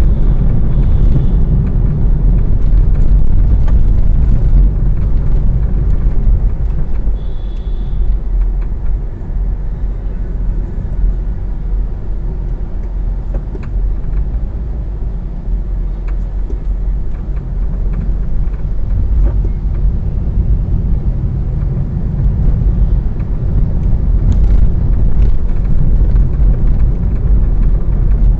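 Road and engine noise inside a moving car's cabin, picked up by a dashcam: a steady low rumble of tyres and engine at city speed, somewhat quieter in the middle as the car slows.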